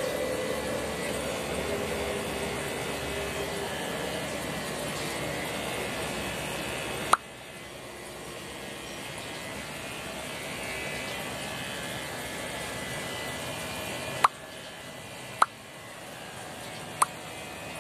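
Electric hair clipper fitted with a number 2 guard, buzzing steadily as it cuts short hair up the side of the head. Four short sharp clicks break the buzz, the first about seven seconds in, after which it sounds quieter.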